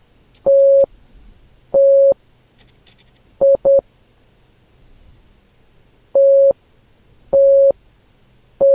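Steady electronic beeps on a single mid-pitched tone in a Morse-like pattern of long and short beeps: two long, two quick short, a pause, then three long as the cycle repeats. The pattern stands for the HP laptop's 3 long, 2 short error code, which points to a memory or memory-slot fault.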